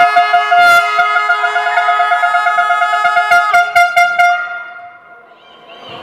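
A loud, long horn note, held steady for about four and a half seconds and then fading away. Sharp thuds of the ball and feet on the hall floor run underneath it.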